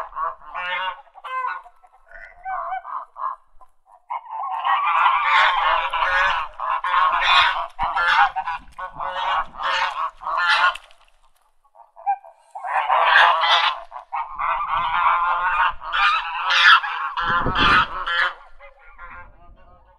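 Ducks quacking, many harsh nasal calls overlapping in long runs. The calls drop to a few sparse quacks for a couple of seconds early on, stop briefly about two-thirds of the way through, then build again and thin out near the end.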